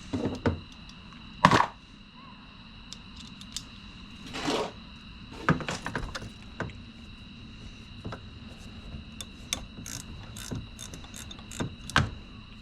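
Hand tools working on a golf cart starter/generator: scattered clicks and knocks of a socket and ratchet on the metal housing, with one loud knock about a second and a half in and a run of small clicks near the end.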